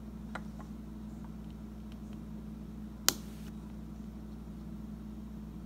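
A few faint plastic handling ticks, then one sharp click about three seconds in as the small switch on the back of a Glimmies doll's head is flipped to turn on her light. A steady low hum runs underneath.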